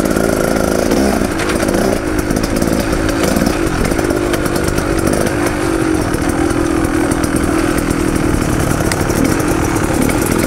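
Dirt bike engine running steadily while the bike rides a rough forest trail, with short clicks and rattles from the bike over the ground.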